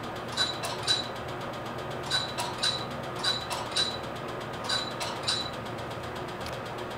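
Lutronic Spectra Q-switched Nd:YAG laser firing single pulses at freckles on the skin, each pulse a sharp snap. The snaps come mostly in pairs about half a second apart, about nine in all, ending a little over five seconds in, over a steady low hum.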